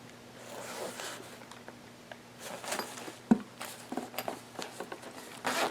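Camera carrying case being handled and unzipped: soft rustles and scattered light clicks, with a sharper knock about three seconds in.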